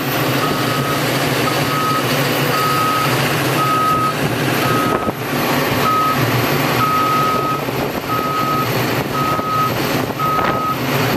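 Travel alarm of a Caterpillar 320EL excavator beeping about once a second, some beeps longer than others, as the machine is driven off the trailer. Its diesel engine runs underneath with a steady low rumble.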